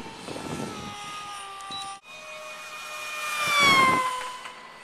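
Electric RC pylon racer's brushless outrunner motor and 4.5×4.5 propeller whining in flight. After a sudden cut about two seconds in, the whine swells and drops in pitch as the plane makes a high-speed pass, then fades: the Doppler shift of a fast flyby.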